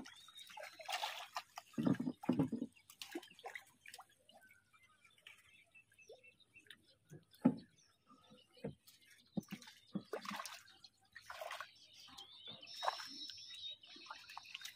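Water splashing and dripping in small, irregular bursts as a fine gill net is hauled by hand out of floodwater into a wooden boat, with scattered light knocks of handling.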